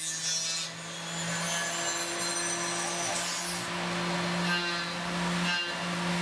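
Tormach PCNC 770 CNC mill taking a roughing cut in aluminum with a 3/4-inch integral shear hog. The spindle gives a steady hum under the noise of the cutter chewing through the metal.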